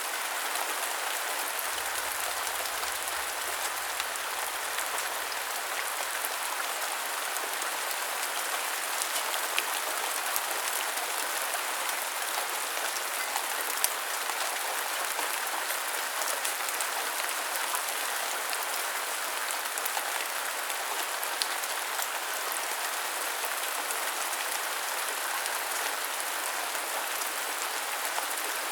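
Monsoon waterfall rushing: a steady, even sound of falling water with faint scattered ticks.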